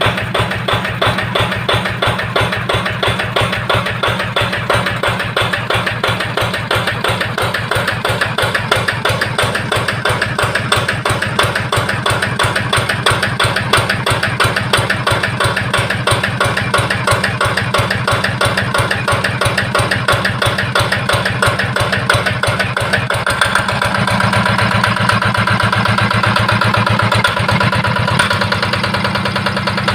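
Yanmar TF65 single-cylinder diesel engine driving a 3-inch water pump, running steadily with a fast, even diesel knock. About three-quarters of the way through the sound becomes a little louder and fuller.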